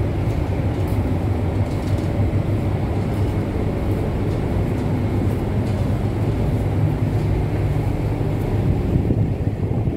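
Steady low rumble of a large passenger ship under way, its engine drone mixed with the rush of the sea, heard from the open deck.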